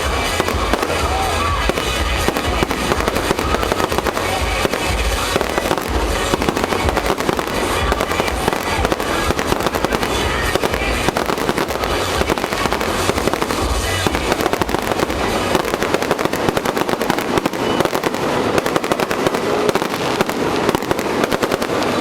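Fireworks going off in rapid succession, a dense crackle of many small bursts, over music with a heavy bass beat that fades out about two-thirds of the way through.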